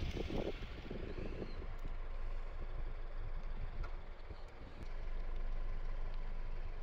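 Steady low background rumble, with a few soft knocks in the first second and a half.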